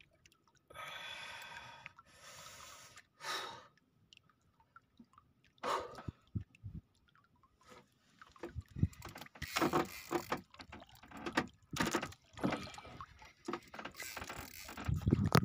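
An angler working a hooked fish on a heavy spinning rod and reel from a small boat: a few breathy puffs of effort early on, then, from about halfway, a busy run of irregular clicks and knocks from reel and boat handling, with water splashing against the hull.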